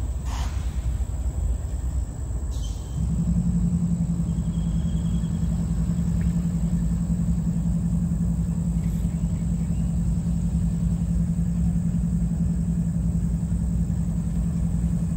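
Low rumble, joined about three seconds in by a steady low motor hum at one pitch.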